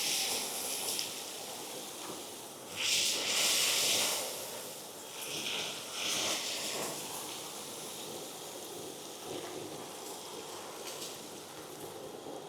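Depureco ECOBULL TAN industrial vacuum, driven by a three-phase side channel blower, sucking drill chips and foundry debris through its hose as a steady rushing hiss of air. There are louder hissing surges about three seconds in and again about six seconds in as chips are drawn through.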